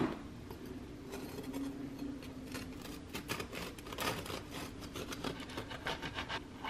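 A knife sawing through a crusty loaf of honey beer bread on a plastic cutting board, in many quick back-and-forth strokes, after a thump at the start as the loaf is set down on the board.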